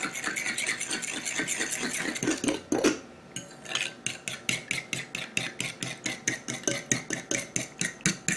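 A fork beating eggs in a bowl: a few seconds of continuous scraping stirring, then the fork clinking against the bowl in a quick, even rhythm of about four strokes a second.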